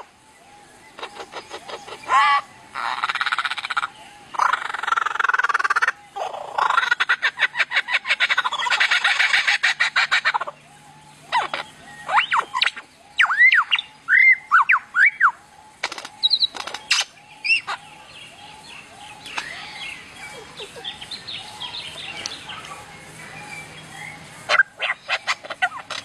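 Lyrebird singing its mimicking song: fast rattling trills for about the first ten seconds, then clear whistled notes that swoop up and down, and softer chattering calls near the end.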